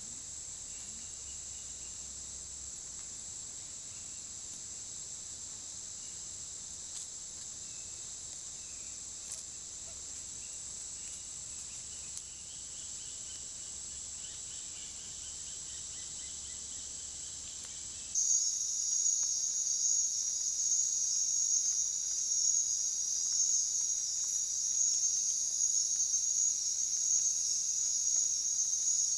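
Rainforest insect chorus: a steady high-pitched drone that changes abruptly about two-thirds of the way in to a louder, pulsing high insect chorus.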